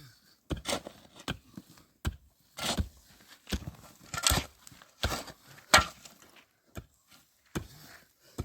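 Repeated chopping blows on wood, roughly one a second and somewhat irregular, with short scraping sounds between some strikes.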